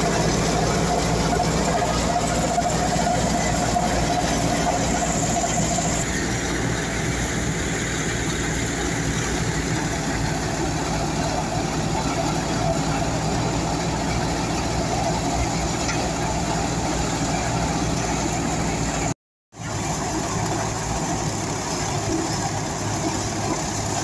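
Tractor-driven wheat thresher running: the tractor engine and the belt-driven threshing drum make a steady mechanical drone as straw is fed in. The sound breaks off for a moment about 19 seconds in.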